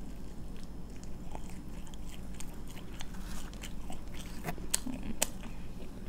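A person chewing a mouthful of pizza close to the microphone, with soft wet mouth clicks and a few sharper smacks in the second half.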